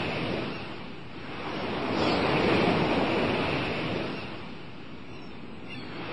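Sea waves washing in and receding. The surge swells to its loudest a couple of seconds in, fades, and starts to build again near the end.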